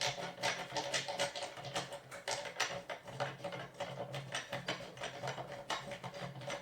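Rapid, irregular small clicks and taps of metal hardware as bolts are turned in by hand while assembling a flat-pack side table, over a low steady hum.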